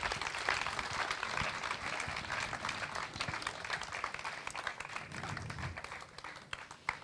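Audience applauding with many hands, fading out near the end.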